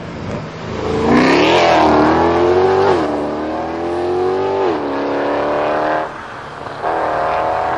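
Mercedes-Benz C63 AMG's V8 accelerating hard away, its note rising up through the revs with two upshifts, where the pitch drops, about three and four and a half seconds in. It eases off about six seconds in, then comes back on the throttle near the end.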